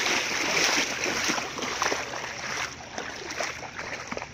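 Shallow water splashing and sloshing as feet wade through it. The sound is heaviest in the first two seconds, then thins out to small, scattered splashes.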